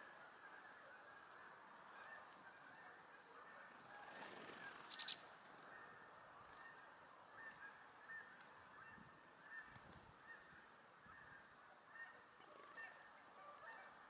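A distant flock of geese honking, a faint continuous chatter of many overlapping calls. A few short high bird chirps come through, and a brief sharp noise about five seconds in is the loudest moment.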